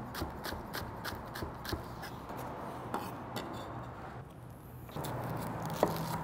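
Chef's knife chopping green onions on a wooden cutting board: quick, even knocks of the blade on the board, about four or five a second, thinning to a few scattered taps and scrapes after about two seconds. Near the end the knife cuts into a red onion with a single knock.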